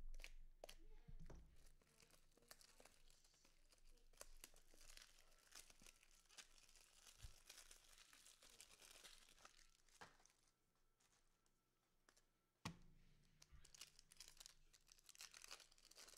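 Faint crinkling and tearing of foil trading-card pack wrappers as packs are torn open and handled, with scattered small clicks and one sharp knock about thirteen seconds in.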